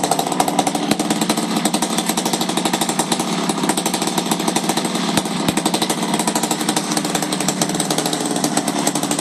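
Zenoah G38 single-cylinder two-stroke petrol engine on a radio-controlled model aeroplane, running steadily with its propeller turning.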